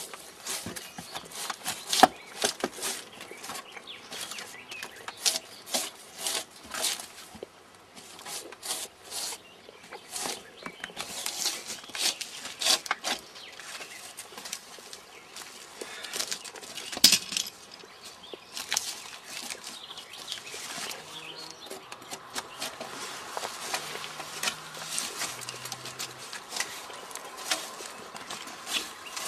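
Irregular quick scraping strokes of a drawknife peeling bark and shaving a round log, with one sharp knock a little past halfway.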